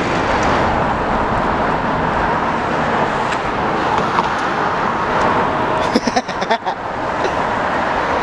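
City street traffic: a steady wash of noise from passing cars, with a few short clicks and a brief drop in level about six seconds in.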